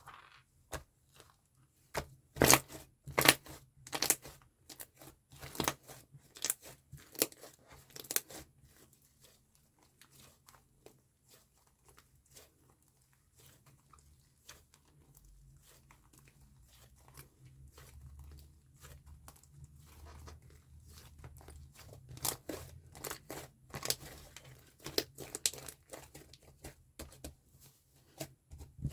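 Slime being squeezed and worked by hand, giving a run of sharp clicks and pops. They are dense at first, thin out in the middle, and pick up again in the last third.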